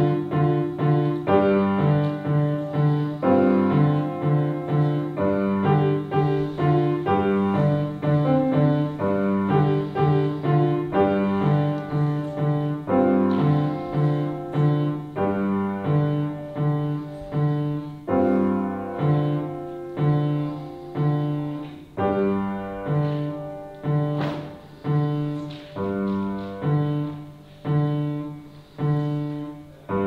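Upright piano played by a young pupil: a short piece over a steady, repeating bass figure. In the last several seconds the notes come further apart, each one ringing out and dying away.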